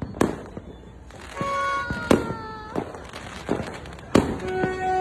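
Fireworks going off: a string of sharp bangs, the loudest about a fifth of a second in, about two seconds in and just after four seconds, with smaller pops between.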